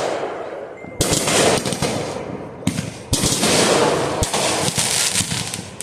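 Consumer fireworks crackling in rapid strings of sharp pops, like firecrackers, in bursts that start about a second in and again about three seconds in.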